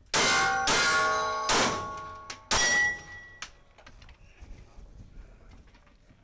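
Four 9mm pistol shots from a Glock 19 in about two and a half seconds, unevenly spaced, each followed by the brief ringing of a struck steel target.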